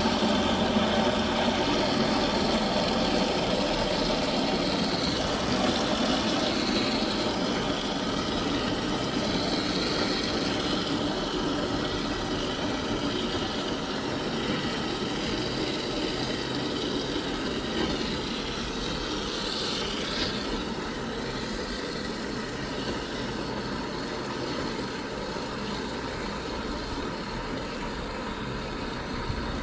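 Steady rush of fresh water flushing through a Rheem tankless water heater and pouring from its drain hose into a bucket, slowly easing in level.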